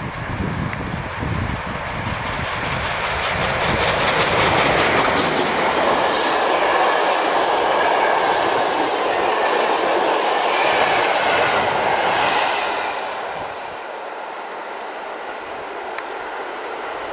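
Passenger train hauled by an EP07 electric locomotive passing close by: coach wheels clattering over rail joints over a steady rumble and rushing noise. About thirteen seconds in it drops to a quieter, steady rumble as the train moves away.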